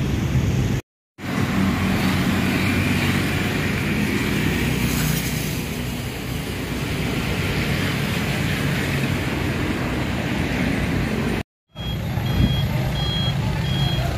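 A bus engine running at idle, a steady low rumble. Near the end, after a cut, a vehicle's reversing alarm starts beeping steadily, a little under two beeps a second.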